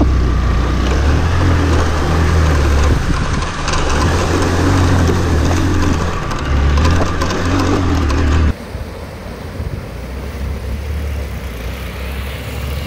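Hero Xpulse 200 single-cylinder motorcycle engine running under way over rough rocky ground, with scattered knocks and clatter and wind noise. About eight and a half seconds in the sound cuts abruptly to a quieter steady rushing hiss with a faint engine hum underneath.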